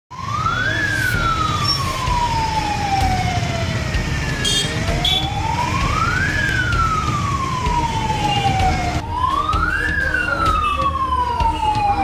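Electronic alarm siren of a gold-loan office wailing in a repeating cycle: the pitch rises quickly and then falls slowly, about every four and a half seconds. It was set off by a technical fault, not a break-in.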